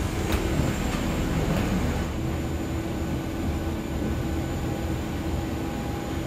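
Steady low rumble of a parked airliner and airport ground noise heard in the jet bridge, with a steady hum that comes in about two seconds in. A couple of light knocks near the start.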